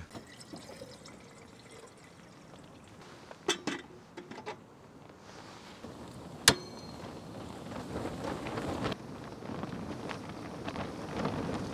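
A few small clicks, then one sharp clink with a brief ringing tone about six seconds in, like tableware being set down. Through the second half a rushing noise builds up and keeps growing.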